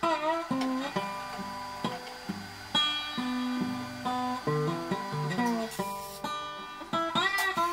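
Background music: a plucked acoustic guitar with a few bent notes.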